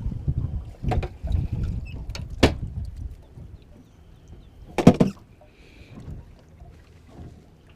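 Wind rumbling on the microphone in gusts for the first three seconds, then easing off, with a few sharp knocks in the boat. The loudest is a short clatter about five seconds in.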